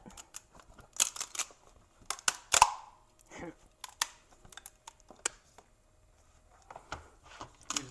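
Handling noise from a flexible 3D-printer build plate with a printed PLA pot on it: scattered light clicks and taps as the plate is tilted and turned, the loudest few in a cluster a couple of seconds in.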